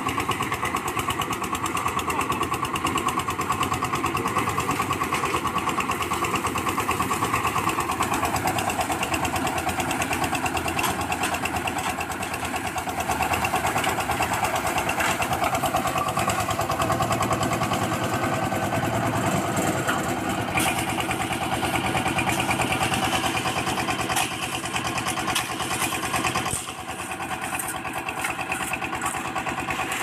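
Small stationary engine of a drum concrete mixer running steadily while the drum turns. Near the end the sound drops a little.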